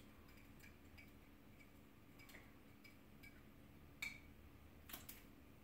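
Faint scattered clicks and ticks of a wine key (waiter's corkscrew) being worked through warmed wax into the cork and levered, with a sharper click about four seconds in; otherwise near silence.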